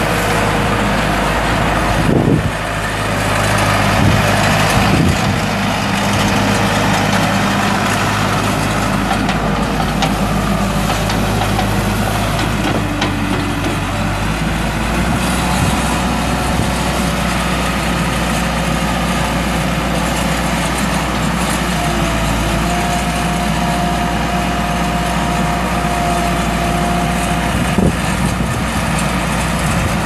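Case 90XT skid steer's four-cylinder diesel engine running steadily as the machine drives and turns on gravel, its note shifting lower about halfway through.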